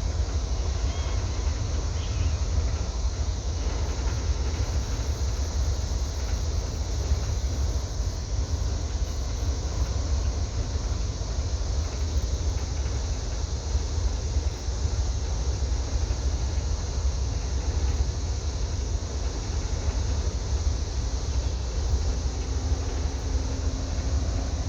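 Low, steady rumble of the Crystal Taylor's engines as the boat moves into the lock, with a faint steady hum joining near the end.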